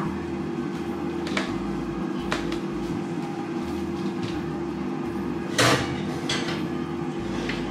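Built-in oven's door being let down open, followed by a few light clicks and knocks as the hot baking dish is handled on the oven rack, the loudest clatter about five and a half seconds in. A steady hum runs underneath.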